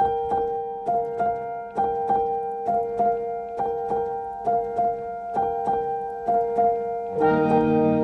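Background music: a keyboard repeats short, evenly spaced piano notes, and about seven seconds in a fuller layer of low sustained chords comes in.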